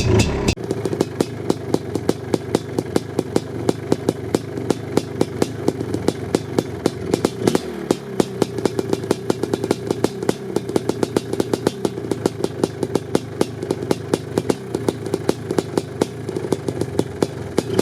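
Suzuki LT500R Quadzilla's 500cc liquid-cooled single-cylinder two-stroke engine drops back from higher revs about half a second in, then idles with sharp, fairly regular pops several times a second.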